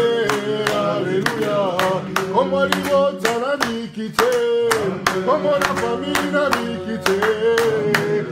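A group of worshippers singing a hymn together, with steady hand clapping in time.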